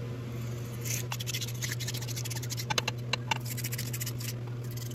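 Small plastic brush scrubbing inside the pressure relief valve bore of a Gen VI 454 big-block Chevy oil pump, in quick scratchy strokes that start about a second in. It is cleaning out the passage where the relief valve plunger was binding. A steady low hum runs underneath.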